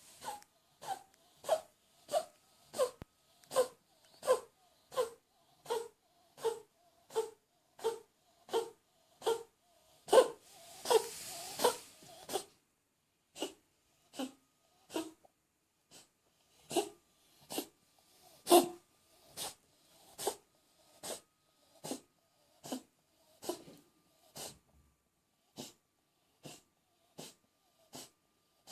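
Short coughs repeating at a steady pace, about three every two seconds, with a longer, rougher rasping stretch roughly a third of the way through.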